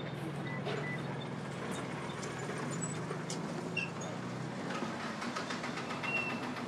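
A vehicle engine idling, a steady low hum that weakens about four and a half seconds in, with faint scattered clicks.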